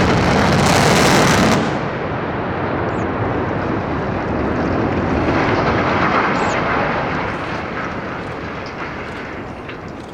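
Explosive demolition of a coal silo: the blast's roar, loudest in the first second and a half, runs into a long, heavy rumble as the structure comes down and debris crashes. The rumble swells again about five to six seconds in, then slowly fades.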